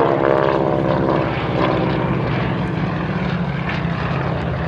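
Propeller aircraft with radial piston engines (Yak-52s and a Harvard) running steadily overhead while flying a tail chase.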